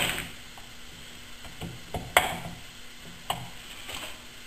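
Steel CV joint knocking against the jaws of a metal lathe chuck as it is handled: four or five sharp metal clinks, each ringing briefly. The loudest comes at the start and another about two seconds in.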